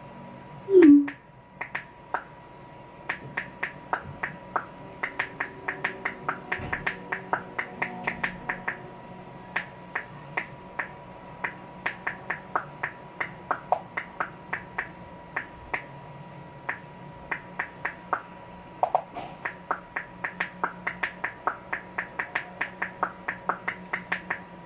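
Long acrylic fingernails tapping on a smartphone touchscreen while typing: many short, sharp clicks in irregular runs, roughly two to four a second, with brief pauses. About a second in there is one short, loud sound like a voice falling in pitch.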